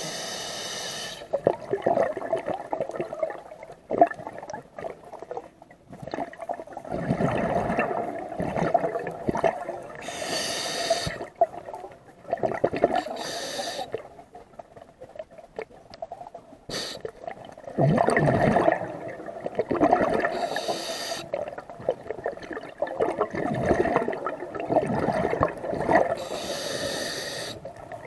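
Scuba diver breathing through a regulator underwater: a short hiss on each inhale and a longer gurgling rush of exhaled bubbles, repeating every several seconds over a few breaths.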